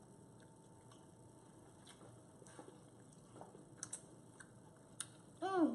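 Faint, scattered clicks and taps in a quiet kitchen, with a short voiced sound near the end.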